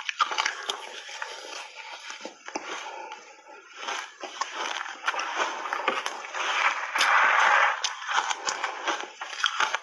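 A person biting and chewing soft refrozen shaved ice dusted with matcha powder, crunching close to a clip-on microphone. The crunching swells into a longer, louder run about two-thirds of the way through.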